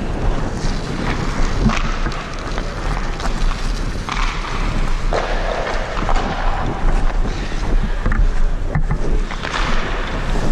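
Ice hockey skate blades carving and scraping the ice in repeated strides, with wind rumbling on a helmet-mounted camera's microphone.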